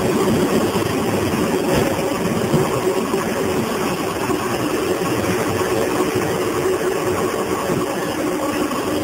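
Grape destemming and pressing machinery running with a steady mechanical hum and a few faint, constant whining tones.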